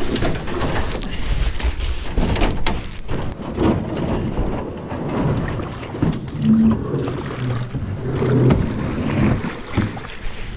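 Loud, uneven rumbling wind buffeting on the microphone aboard a small paramotor airboat, with a few sharp knocks scattered through it.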